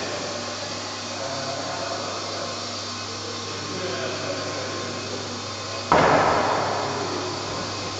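Steady hum and hiss of a large hall, broken about six seconds in by a sudden loud rush of noise that fades away over a second or two.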